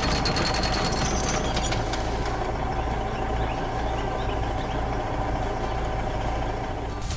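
Heavy construction-vehicle engine running steadily, with a rattling clatter over it for the first couple of seconds; it cuts off suddenly near the end.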